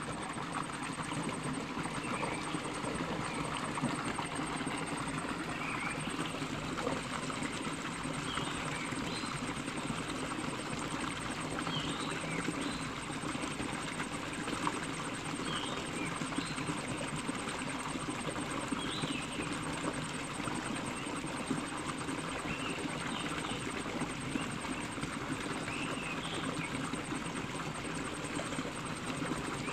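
Small waterfall splashing into a rocky stream: a steady rush of water, with a few faint short chirps now and then.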